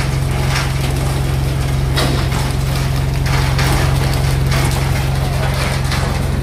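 A fishing boat's engine drones steadily, with irregular knocks and clatter from work on deck.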